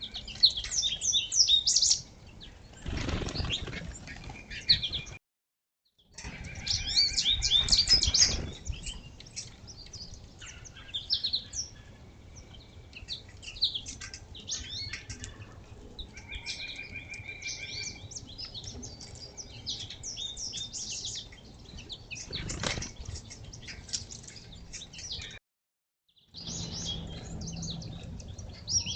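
Several small songbirds chirping and calling over one another, with repeated short trills and three brief bursts of fluttering wings. The sound cuts to silence twice for about a second.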